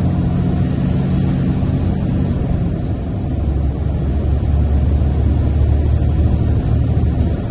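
Tipper truck's diesel engine running under way, with tyre and road hiss from the wet tarmac. About three seconds in the engine note drops to a deeper, steadier pitch.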